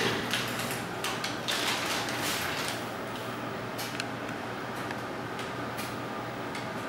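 Brown paper bag rustling and crinkling as kittens scramble in and around it, busiest in the first two or three seconds, then a few faint scratches and taps.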